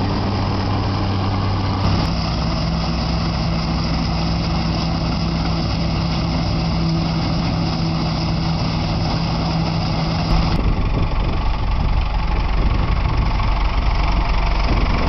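Massey Ferguson 525 combine harvester's engine running steadily at working speed, with a held low hum. The sound shifts abruptly about two seconds in and again about ten seconds in.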